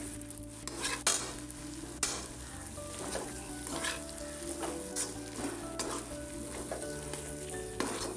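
A spatula stirring and scraping through a pan of frying spice paste and fish, with a steady sizzle under it. The sharp scrapes and knocks of the spatula come irregularly, about once a second.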